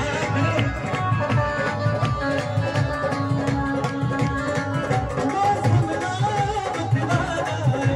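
Live Hindu devotional kirtan music amplified through loudspeakers: a male singer on a microphone over a steady hand-drum beat and keyboard.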